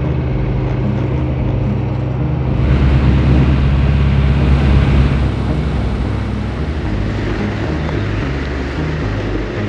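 Enclosed lifeboat's engine running steadily while under way, louder for a couple of seconds about three seconds in.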